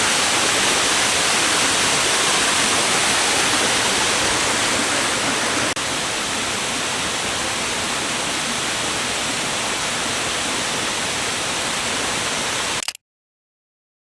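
Steady rush of Glen Falls, a tiered waterfall, with no breaks in it. It drops a little in level about halfway through and cuts off suddenly to silence near the end.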